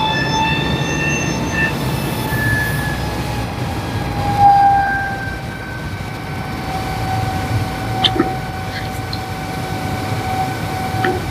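Fire engine's diesel engine and fire pump running hard under heavy load, with a steady whine over the rush of a high-volume water flow. A couple of short clicks about eight seconds in.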